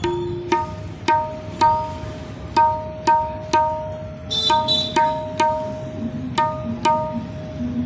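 Right-hand tabla (dayan) tuned to 'do kali', D#, struck repeatedly about twice a second. Each stroke rings on the same clear, steady pitch, showing the drum's tuning.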